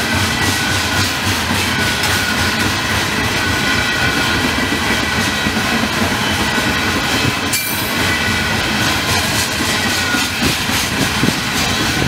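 Loaded coal hopper cars of a freight train rolling past at speed: steel wheels clattering over the rail joints, with a steady high-pitched squeal from the wheels on the rails.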